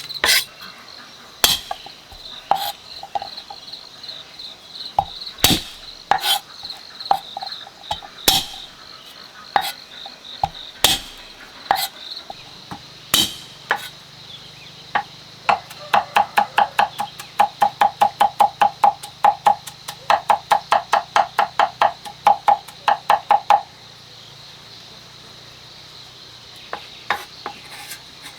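Food being chopped with a knife on a cutting board: scattered knocks and clinks, then a fast even run of chops, about five a second, for several seconds, that stops near the end. A steady high insect drone runs underneath.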